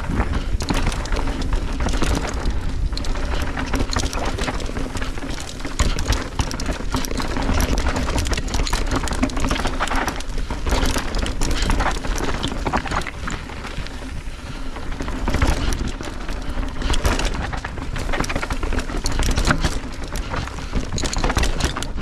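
Mountain bike riding down a rough dirt and rock trail: tyres rolling and crunching over dirt and rocks, with the bike knocking and rattling over bumps and a heavy rumble of wind on the microphone.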